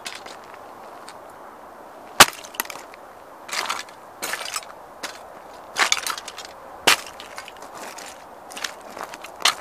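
Nike Air Max 90 sneakers stomping on the broken plastic body of a Ferrari model toy car on gravel. The plastic snaps and the stones crunch underfoot in about eight irregular sharp cracks, the loudest about two seconds in.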